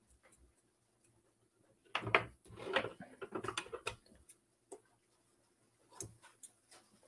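Handling noise of a small metal rebuildable atomizer and a fine metal tool as cotton wicks are combed: light clicks and taps, with a short spell of rustling and knocking about two seconds in and single clicks later.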